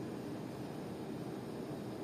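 Steady low background rumble with no distinct sounds standing out.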